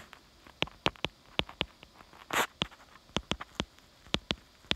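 Stylus tapping and scratching on a tablet's glass screen while handwriting: an irregular run of sharp ticks, about three or four a second, with a longer scratch of a stroke about two and a half seconds in.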